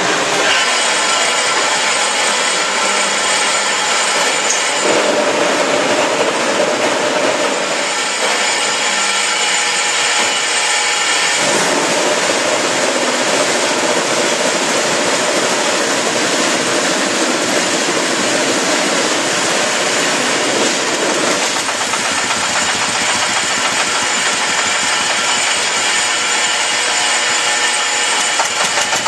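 Concrete block plant machinery running: a loud, steady industrial din from the mixer, feed hopper and conveyors. A harsher, higher drone joins in from about five to eight seconds in and again from about twelve to twenty-one seconds in.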